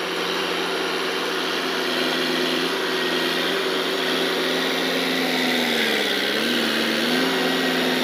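D-50 crawler bulldozer's diesel engine running steadily while the blade pushes earth. About six seconds in, the engine's pitch dips briefly and comes back up as it takes the load of the blade.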